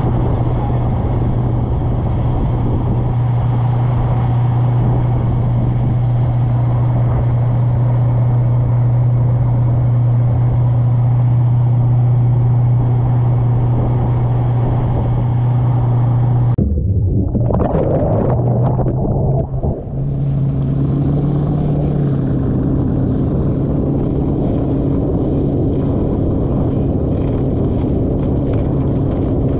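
Ski boat engine running steadily at speed, a constant low drone with water rushing past. About halfway through the sound shifts abruptly and briefly breaks up, then settles into a steady drone of different pitch with water and spray noise.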